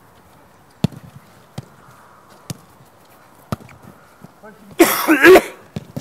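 Four sharp knocks, roughly a second apart, then a loud half-second burst of a person's voice near the end.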